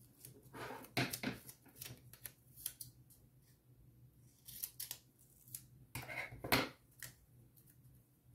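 Scissors snipping through a paper sticker sheet: a few cuts about a second in and again about six seconds in, with small paper rustles and clicks between.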